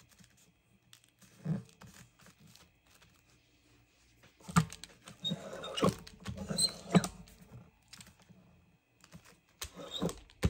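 Hand brayer (rubber roller) rolled over a freshly glued paper page on a table to press it flat, with paper rustling and knocks. Mostly faint at first, then a cluster of louder rolling and rustling strokes about halfway through and more near the end.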